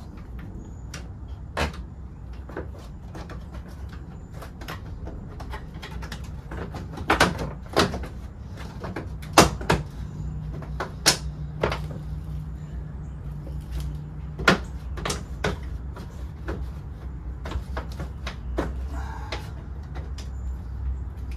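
Scattered sharp clicks and knocks of hard plastic bumper trim and license plate light parts being handled and fitted by hand, bunched in the middle, over a low steady rumble with a faint hum for a few seconds in the middle.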